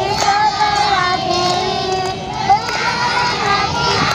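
A large group of young children singing a song together in unison.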